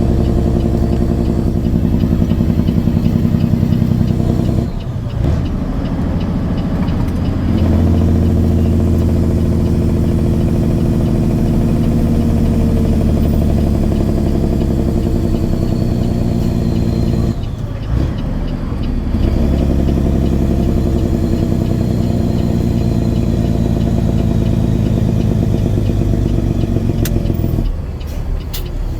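Caterpillar 6NZ (3406E) truck diesel pulling up through the gears, its turbo whistling and rising in pitch as it spools under load. The engine note drops out briefly at a gear change about five seconds in and again at about eighteen seconds, then picks up again.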